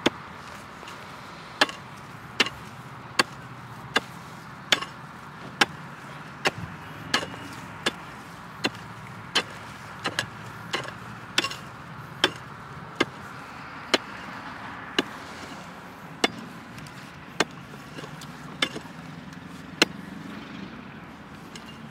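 Pickaxe chopping into dry, hard ground again and again, about one blow a second, digging out a metal detector target. Near the middle two blows come close together, and towards the end the blows come a little further apart.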